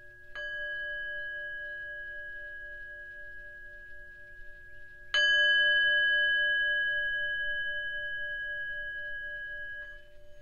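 A hand-held Tibetan singing bowl struck twice with a mallet, the second strike louder, each leaving a long, slowly fading ring of several steady tones. Just before the end the ringing drops sharply as the mallet touches the bowl.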